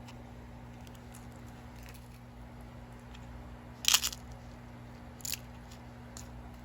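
Items being handled during an unboxing: a few short crinkles and clicks, the loudest about four seconds in and a smaller one about a second later, over a steady low hum.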